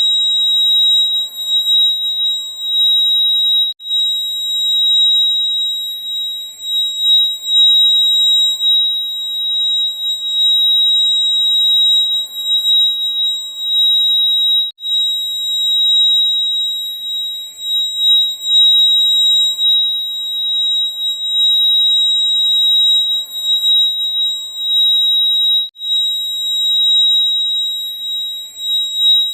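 Fire alarm sounder giving a loud, steady, high-pitched tone, with three very brief breaks about eleven seconds apart.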